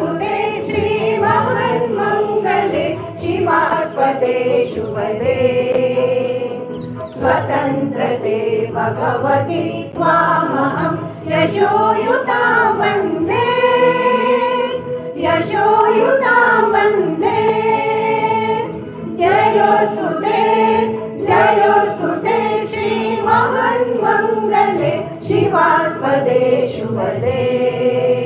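A group of voices singing a song together in chorus.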